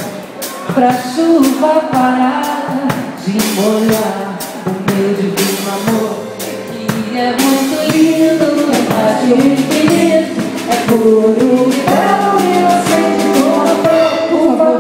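Live acoustic band playing: a woman singing a melody over a strummed acoustic guitar, with double bass and keyboard accompaniment and a steady percussive strumming rhythm.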